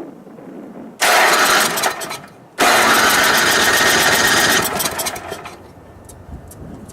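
Snowblower engine being started after storage. It fires about a second in and dies away, then catches again and runs loudly for about two seconds before fading out. It is a rough cold start on fuel that may lack stabilizer.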